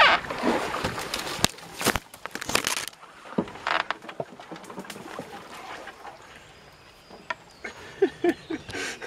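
Willow branches scraping and rustling along a wooden canoe and its paddle as it pushes through an overhanging tree, with sharp knocks of the paddle caught in the branches in the first few seconds. Then quieter, with a few light knocks and some short squeaks near the end.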